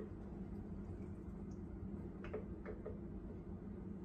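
Quiet room tone with a low steady hum and a few faint, light clicks about two to three seconds in.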